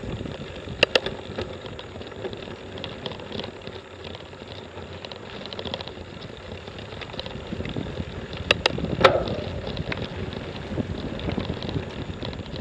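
Mountain bike riding over a bumpy dirt trail: a steady rumble of tyres rolling on dirt and grass, with sharp clicks and knocks from the bike rattling over bumps, twice near the start and in a cluster about eight to nine seconds in.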